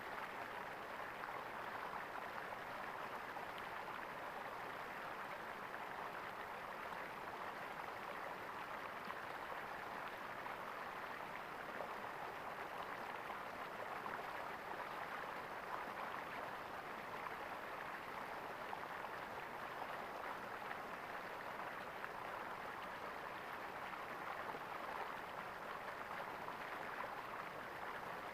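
Flowing water gurgling steadily, an even rush with no pauses or changes.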